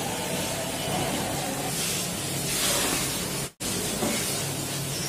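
Steady hiss of room noise with a faint low hum, cutting out for an instant about three and a half seconds in.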